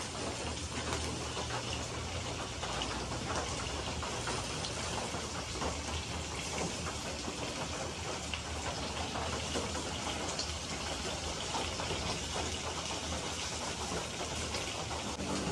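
Sliced pork frying in hot oil in a pan, a steady sizzle full of small crackles and pops as the meat browns.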